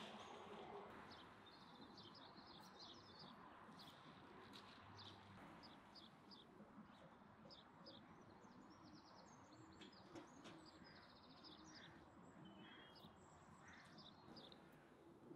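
Near silence with faint bird chirps: many short, high calls and a few brief trills scattered throughout.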